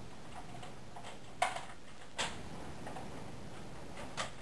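A Nerf foam-dart blaster clicking sharply three times: about a second and a half in, again less than a second later, and once more near the end.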